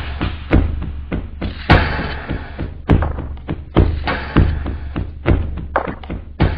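Choppy water slapping against a kayak's bow in irregular thuds and knocks, over a steady low rumble of wind on the microphone.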